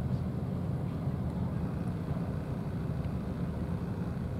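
Steady low engine drone, a motor running without change.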